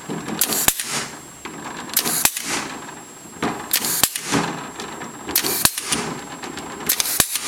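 Clip gun fastening wire rings to a wire-mesh oyster cage, about five times at an even pace. Each firing is a short hiss followed by a sharp snap.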